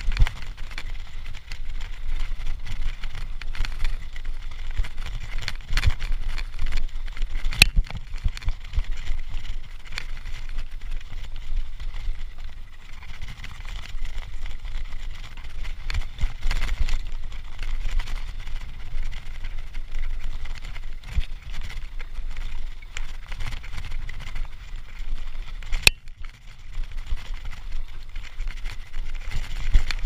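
Mountain bike rolling downhill on a dirt trail, heard from a chest-mounted camera: continuous tyre noise and rattling of the bike over the bumps, with wind buffeting the microphone. A couple of sharp knocks come through, one about eight seconds in and one near the end.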